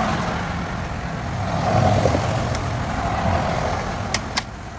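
Rustling and scraping of a wire being worked through a rubber grommet in a car body, with two sharp clicks near the end, over a steady low rumble.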